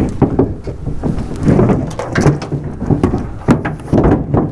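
Irregular clunks, knocks and rubbing as a heavy 50-amp shore power cable and its connector are pulled over and handled.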